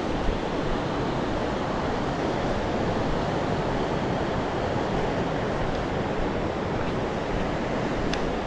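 Steady rushing of a fast-flowing mountain river's white water, an even wash of noise without pauses.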